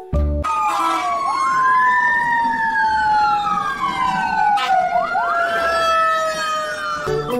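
Fire truck siren wailing, its pitch sweeping up and then slowly down twice, over a second siren tone that slides steadily lower, with traffic noise underneath.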